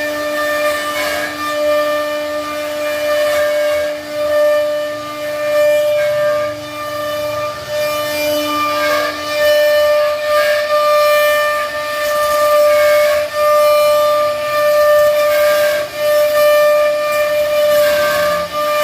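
CNC router spindle cutting wood with a steady high whine, the cutting hiss swelling and dipping as the bit moves through the cut.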